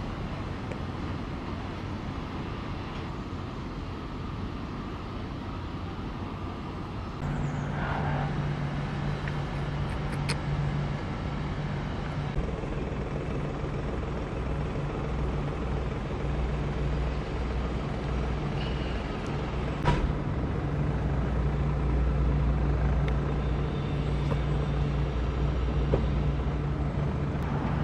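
City traffic noise with a motor vehicle engine running; a steady low hum comes in about seven seconds in and holds, with a couple of sharp clicks.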